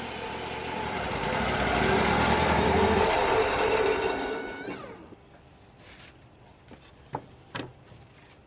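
Bandsaw sawmill cutting through a cedar flitch, then the blade spinning down with a falling pitch about five seconds in. Two sharp knocks follow near the end.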